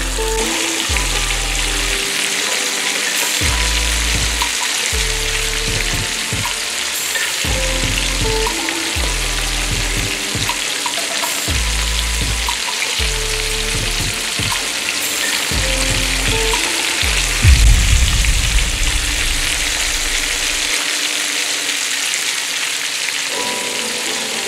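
Flour-dusted yellowtail frying in olive oil in a pan, a steady sizzle, over background music with a low bass line. A louder low rumble comes in about three-quarters of the way through and lasts a few seconds.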